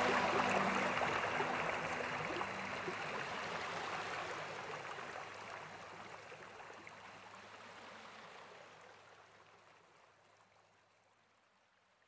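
Waterfall's rushing water, a steady hiss that slowly fades out, dying away to nothing near the end.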